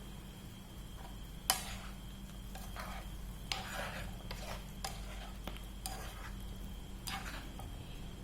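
A cooking utensil stirring food in a pot, with about eight short scrapes and knocks against the pot, the sharpest about a second and a half in, over a steady low hum.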